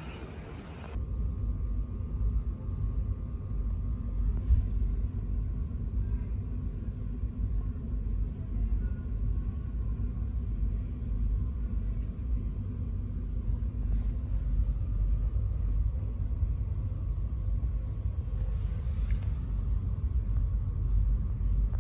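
Steady low rumble of a vehicle in motion, starting abruptly about a second in.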